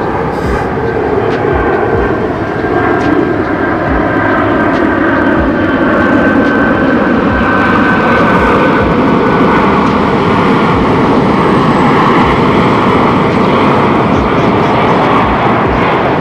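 FedEx Boeing 767-300F freighter's twin General Electric CF6-80C2 turbofans on final approach with gear down: a loud, steady jet roar as the aircraft passes low overhead, with a high whine that slowly falls in pitch and fades about halfway through.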